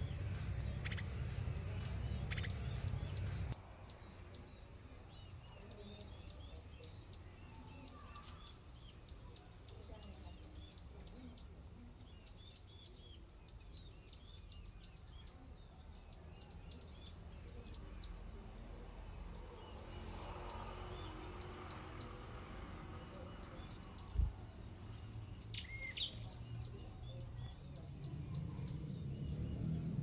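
High, thin bird chirps in quick runs of several at a time, repeated with short pauses, each chirp a brief downward sweep. A low rumble runs under the first few seconds and returns near the end, and a single brief knock falls about two thirds of the way through.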